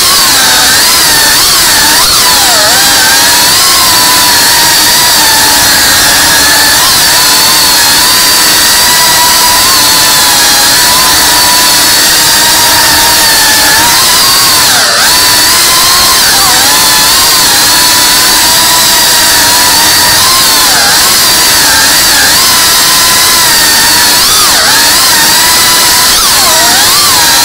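FPV quadcopter's brushless motors and propellers whining loudly and steadily, the pitch dipping and climbing again and again as the throttle changes, heard close up from the camera on the drone.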